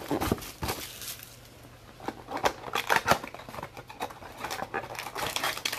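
Sealed boxes of football trading cards being opened and handled: irregular clicks, taps and crinkling of wrap and cardboard, busier in the second half.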